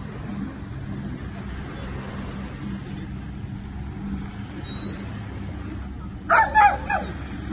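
A police dog barking in a quick run of about four sharp barks near the end, over a steady low rumble.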